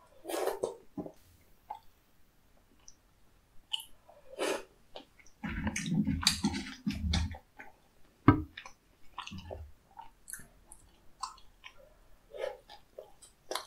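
Close-miked chewing and mouth sounds of a person eating tteokbokki rice cakes and fried snacks, with scattered clicks. A dull rumbling stretch around the middle is the loudest part, followed by one sharp tap.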